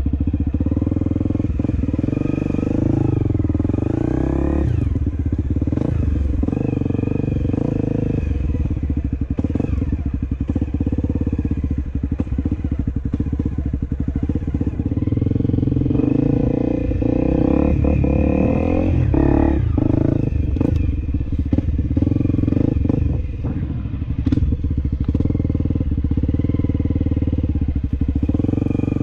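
Honda CRF250L's single-cylinder four-stroke engine running as the trail bike is ridden at low speed, revving up twice, once early and once past the middle.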